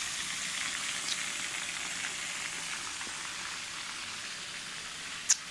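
Oil sizzling and crackling steadily as zucchini stuffed with ground meat deep-fry in a pot. A single sharp click comes near the end.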